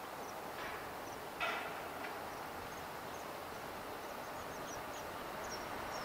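Steady background hum of distant traffic, with short, faint high-pitched bird chirps scattered through and one sharp knock about a second and a half in.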